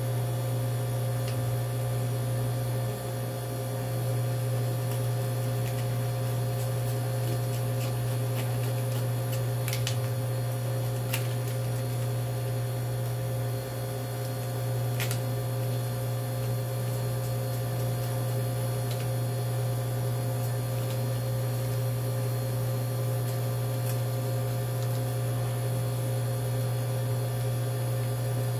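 Steady low electrical hum, with a few faint light clicks around ten and fifteen seconds in.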